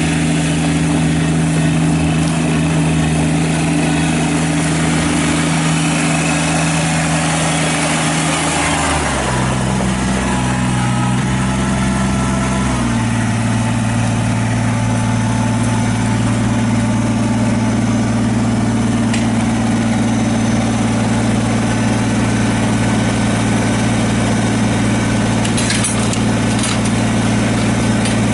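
Kubota BX23S subcompact tractor's three-cylinder diesel engine running steadily. Its speed drops in two steps, about nine and thirteen seconds in, then holds at the lower speed. A few light clicks come near the end.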